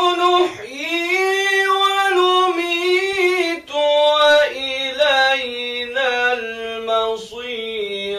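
A Quran reciter's voice in melodic tajwid chanting, holding long, ornamented notes. The pitch steps down, from high in the first few seconds to lower toward the end.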